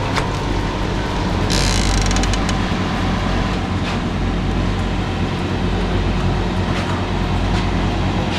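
Refrigerated display freezer running with a steady low hum and fan rush. About a second and a half in, a short hiss with clicks as its glass door is opened.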